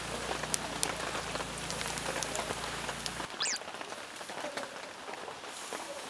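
Heavy rain falling steadily, with many sharp drop hits. A low hum underneath stops suddenly about halfway through, followed by a brief falling whistle.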